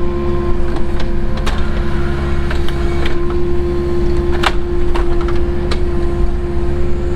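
Cat 307 excavator's diesel engine running steadily under load, with a steady high whine over the drone, while the grapple works boulders; several sharp knocks and clicks sound through it.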